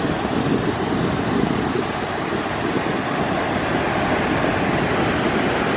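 Ocean surf breaking and washing up onto a sandy beach: a steady, even rush of wave noise.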